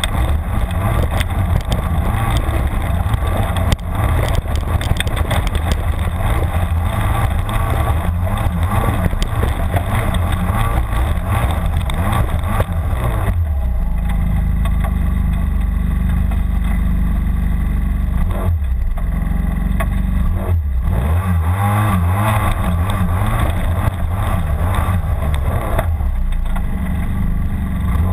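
Snowmobile engine running under throttle as the sled climbs, its track churning up dirt. About halfway through the sound turns deeper and heavier, with a couple of brief dips in the engine a few seconds later.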